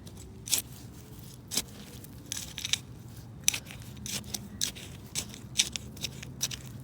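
Soil being dug through by hand to unearth potatoes: about a dozen sharp crunches and scrapes at irregular intervals.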